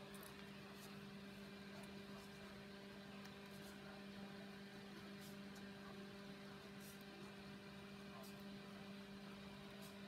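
Quiet, steady electrical hum, with faint, irregular scratchy ticks from a craft knife blade scoring chipboard.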